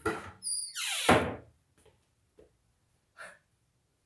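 Kitchen cupboard door pulled open: a brief squeak, then a loud creak sweeping down in pitch as it swings, followed by a few faint knocks of things moved on the shelf.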